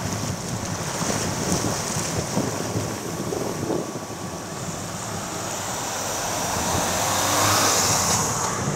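Wind buffeting the microphone with a steady wash of small waves on the water; the gusting grows louder about seven seconds in.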